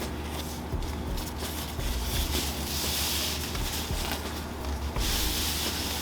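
Rustling and scraping of packaging as a foam RC-plane wing is lifted out of its box, with two louder swells of rustling partway through and near the end.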